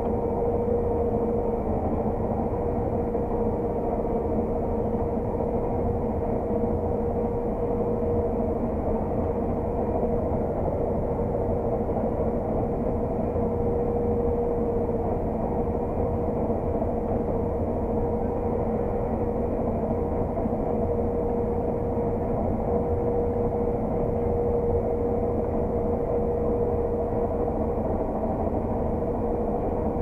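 Claas Lexion 600 TT combine harvester working under load while harvesting, heard from inside the cab: a steady deep drone of engine and threshing machinery with a constant whine on top.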